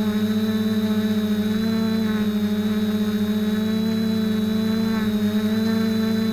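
FPV quadcopter's motors and propellers buzzing steadily, heard close up through the camera mounted on the craft. The buzz wavers slightly in pitch, and a thin high whine runs above it.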